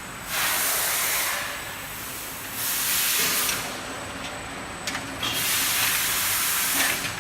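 Glass bottle washing machine's jets hissing in three bursts, the last the longest at nearly two seconds, over a faint steady machine hum.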